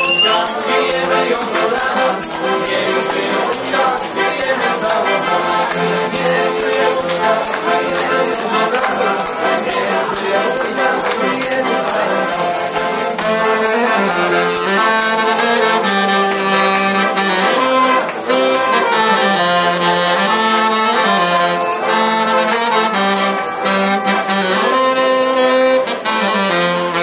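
Live wedding band playing an instrumental passage of a lively song: trumpet and saxophone carry the melody over accordion, with a tambourine shaken to a steady beat. The brass lead grows brighter about halfway through.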